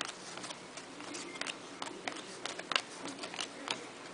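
A stack of football trading cards being flipped through by hand: irregular light clicks and slides of card stock against card stock.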